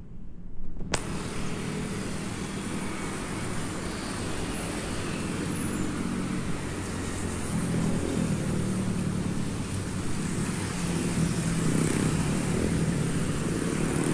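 Road traffic: cars and motor scooters running past on a nearby street, a steady wash of engine hum and tyre noise that grows louder in the second half.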